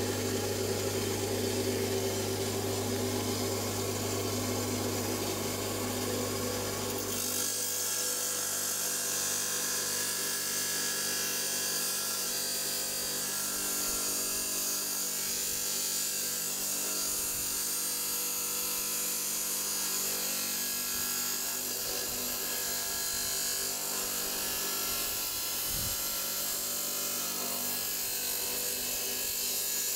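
Electric rock saw running steadily as it cuts open a stone. About seven seconds in, the low hum gives way to a brighter hiss that holds for the rest of the cut.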